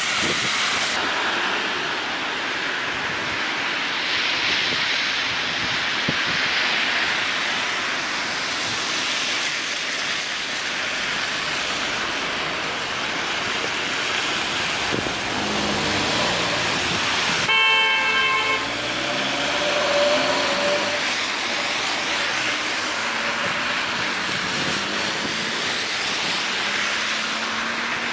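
Cars passing on a wet, slushy road, their tyres hissing steadily. About two-thirds of the way in, a car horn sounds once for about a second.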